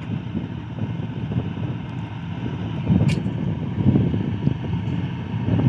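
HBU-20 diesel-electric locomotives running under power as they haul an approaching freight train: a steady, pulsing low engine rumble, with wind on the microphone. A brief sharp click about three seconds in.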